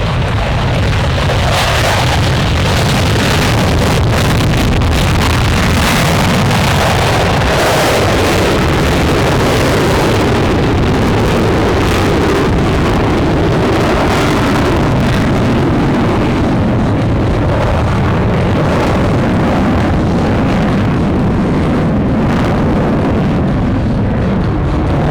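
Propeller-driven STOL aircraft engines running hard during a low-level short takeoff and landing demonstration, a loud, steady rumbling drone, with wind buffeting the microphone.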